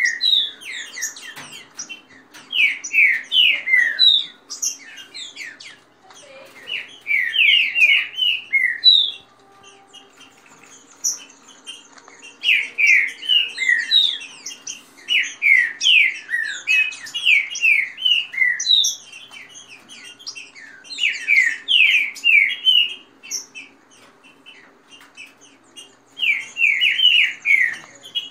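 Caged green-winged saltators (trinca-ferro) singing: repeated phrases of quick, downward-sliding whistled notes, each phrase about two seconds long, broken by short pauses.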